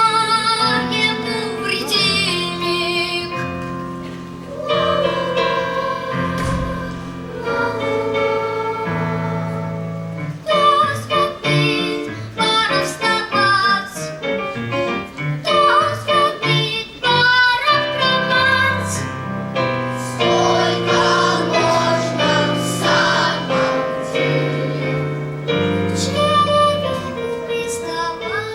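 A choir and a female solo voice singing a song with instrumental accompaniment.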